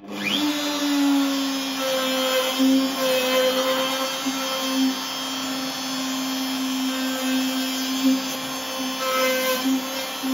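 DeWalt compact router coming up to speed at the very start, then running with a steady whine that wavers slightly as its large bit trims proud end grain flush on a hardwood box.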